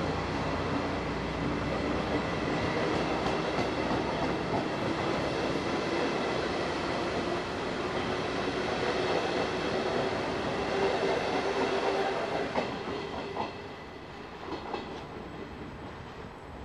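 Electric-hauled regional passenger train running out of the station past the platform, its coach wheels clattering on the rails and points. The steady rumble fades about three quarters of the way through, with a few clacks as it moves away.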